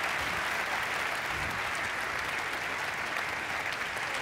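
Theatre audience applauding steadily, greeting a performer's entrance onto the stage.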